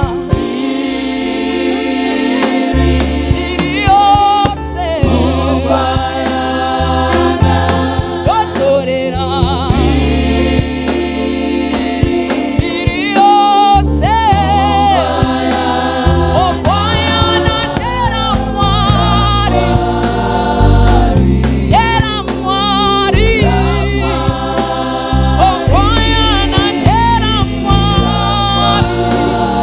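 Gospel worship music: a choir singing with a band, sustained bass notes coming in about three seconds in.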